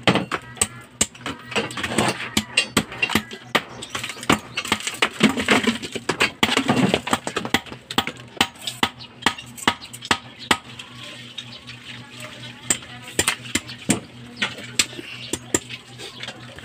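Irregular sharp knocks and clinks of a hammer chipping the cement mortar around a ceramic toilet bowl's base to break it loose. The knocks come thick at first and thin out after about ten seconds.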